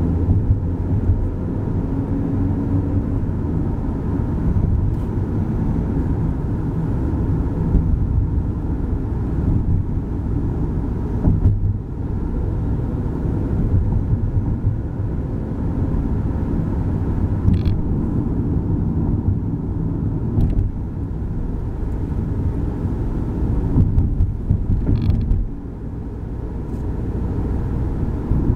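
Road noise inside a moving car: a steady low rumble of engine and tyres, with occasional creaks and short clicks from the cabin.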